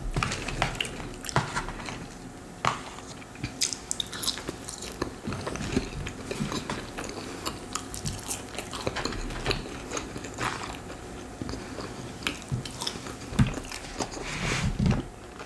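A person chewing and biting food close to the microphone, with many short wet mouth clicks and occasional crunches.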